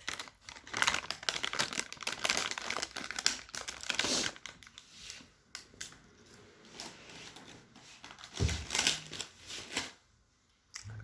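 Ginger pieces crackling and rustling as they are roasted and turned on a wire mesh over a gas burner flame: dense, irregular crackling for the first few seconds, then sparser, with a dull knock about eight seconds in.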